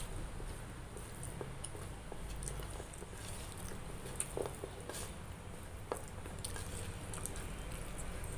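Close eating sounds: soft wet squishing and scattered small clicks as fingers mix rice with chana masala on a plastic plate, along with chewing.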